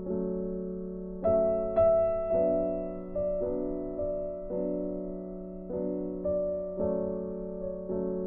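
Slow, gentle background piano music, with notes and chords struck about once a second and each fading away over a held low note.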